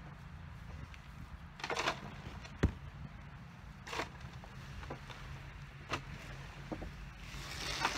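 Cloth grave coverings being pulled and shifted by hand at the grave's edge: a few brief rustling scrapes, and one sharp knock about two and a half seconds in.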